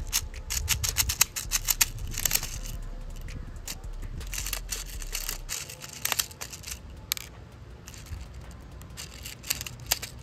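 Quick runs of small plastic clicks from an airsoft speed loader pushing BBs into a shotgun shell, in several bursts with short pauses between.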